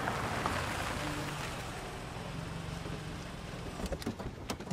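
A Mercedes-Benz GLC Coupé rolling slowly over cobblestones and pulling to a stop, its tyre noise fading as it slows over a low engine hum. Near the end come a few sharp clicks as the doors are unlatched.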